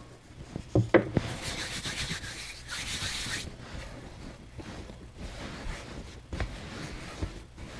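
Hands kneading a sticky bread dough on a floured silicone baking mat: the dough is pushed, folded and pressed against the mat with a steady rubbing sound and a few soft knocks.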